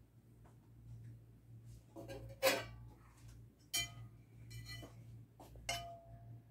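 A handful of light clinks of kitchen utensils against a pot or bowl between about two and six seconds in, the last one ringing on briefly, over a low steady hum.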